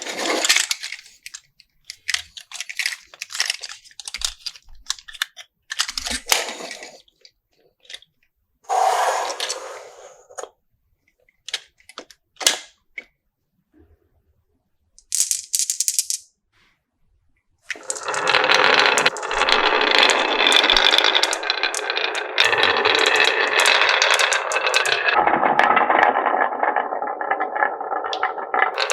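Marbles clicking and rattling along a HABA wooden marble run, at first in scattered short clatters with silent gaps between them. About two-thirds of the way in, a dense, continuous clatter of many marbles rolling together takes over.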